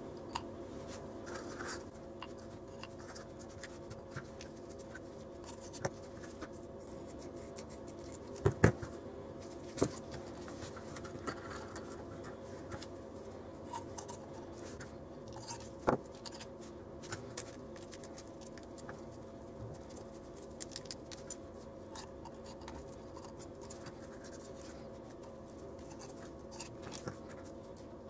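Handling noise from gloved hands packing small items into a small tube container: scattered light clicks, taps and scratches, with a few sharper knocks around 8 to 10 seconds in and again near 16 seconds. A steady low hum lies underneath.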